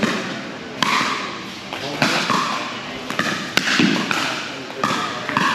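Pickleball paddles striking a plastic ball in a rally: a string of sharp pops a second or so apart.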